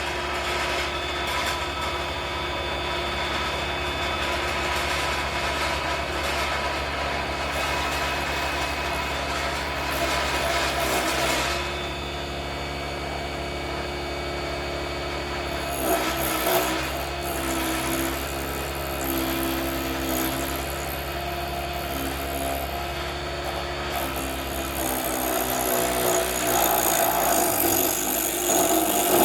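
Small Vevor HS001 wood lathe running with a steady motor hum while a turning tool scrapes the spinning branch wood. The scraping comes and goes, with louder stretches around ten and sixteen seconds in and a hissier cut near the end.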